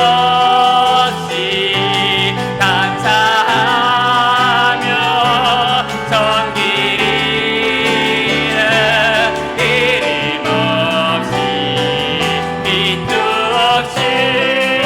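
Church praise band playing a slow worship song: piano and bass guitar under a wavering sung melody line.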